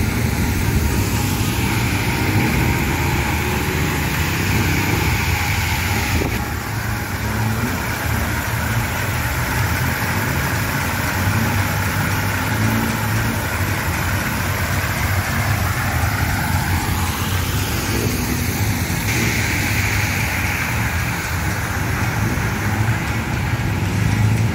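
Road traffic running steadily around a city roundabout, a constant low engine rumble with a rising whine of a vehicle accelerating partway through.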